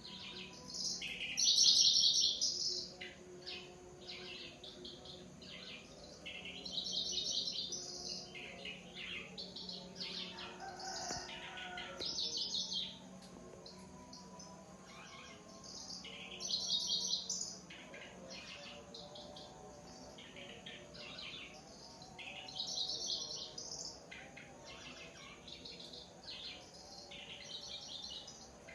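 Kecici belalang (cici lurik) singing: high, rapid trilling phrases of a second or two, about six of them, repeated every few seconds over a faint steady low hum.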